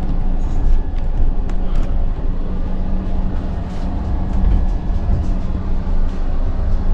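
Passenger train running, heard from inside a sleeper compartment: a steady low rumble with a steady hum over it and a few faint ticks.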